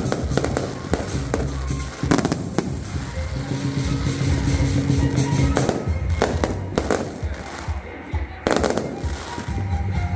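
Aerial fireworks bursting: a string of sharp booms and crackles every second or two, one of the biggest about eight and a half seconds in, over background music.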